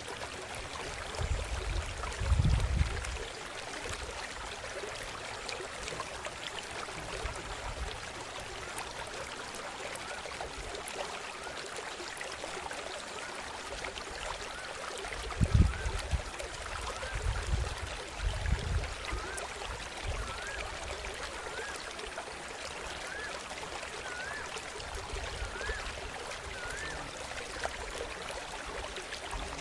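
River water rushing and splashing steadily. A few low rumbling bumps come near the start and again about halfway. A short rising chirp repeats about once a second through much of the second half.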